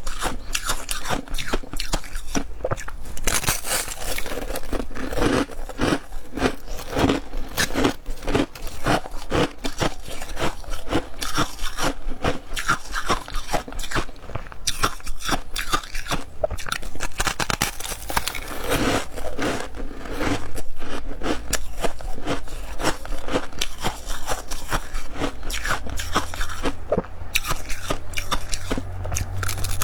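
Close-up crunching and biting of dry, crispy chunks of ice, a dense run of irregular cracks and crackles.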